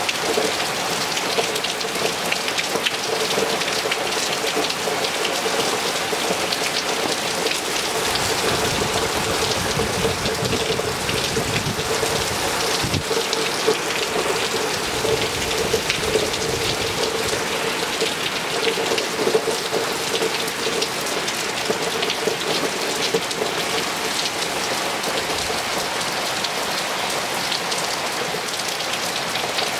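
Hard rain pouring onto a swimming pool's water and a paved patio: a dense, steady patter of drops.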